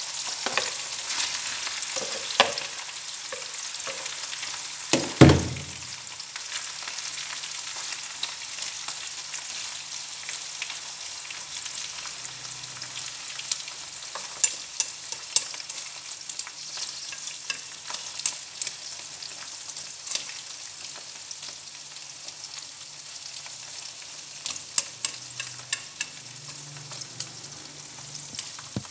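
Shrimp sizzling steadily in hot oil with lemongrass and ginger, with scattered light clicks of chopsticks against the pan as they are stirred. A loud knock comes about five seconds in.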